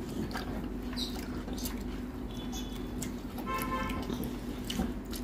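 Hand-eating sounds: fingers working rice and curry in a steel plate and soft mouth clicks, over the steady hum of a running air conditioner. About three and a half seconds in comes a short horn toot.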